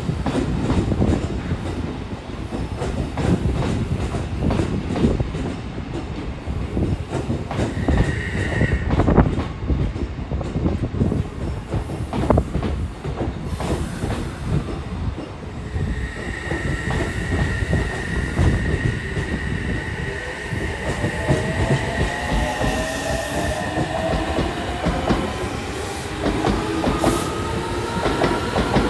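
Odakyu 8000 series electric train pulling out: wheels clatter over the rail joints throughout, and from about two-thirds of the way in the traction motors' whine climbs steadily in pitch as the train gathers speed.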